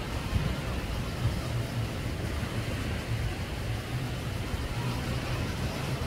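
Wind buffeting the microphone in an uneven low rumble, over a steady background roar.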